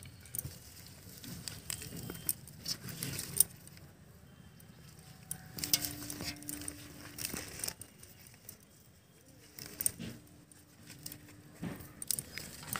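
Hands pulling taro corms from damp soil and crumbling the dirt off them: quiet, irregular rustling and crackling of soil and roots, with bangles clinking now and then.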